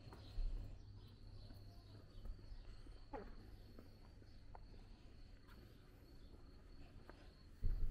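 Steady high insect chirring, like crickets, with faint scattered footstep clicks. Two brief low thumps, one about half a second in and one near the end.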